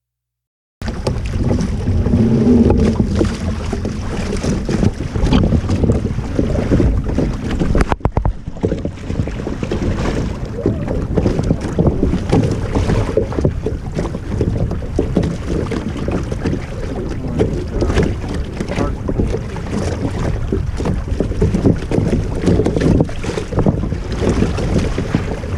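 Wind buffeting the microphone over water rushing and splashing along the hull of a Hobie Mirage Adventure Island sailing kayak under way. It starts abruptly about a second in and breaks off for a moment near the middle.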